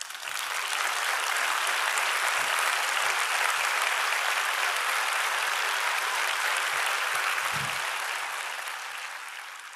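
Audience applauding, starting suddenly and fading out near the end.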